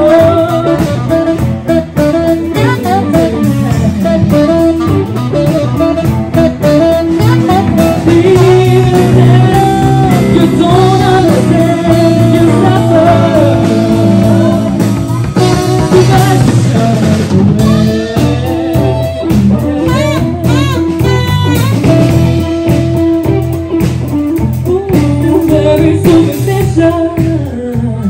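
A live band playing through a PA: a woman singing with saxophone, electric guitar and drum kit.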